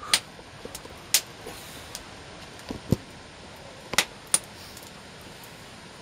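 Five short, sharp clicks and knocks of objects being handled, the first near the start, then about a second in, about three seconds in and two close together about four seconds in, over a steady low hiss.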